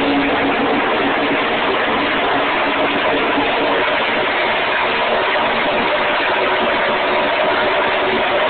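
Race cars running together on an oval track: a steady, continuous engine drone with no single car rising or falling in pitch.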